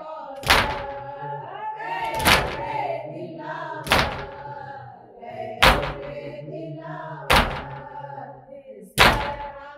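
Mourners' matam, hands beating on chests in unison in a slow steady rhythm, six strikes about every 1.7 seconds. Between the strikes a voice sings a nauha lament.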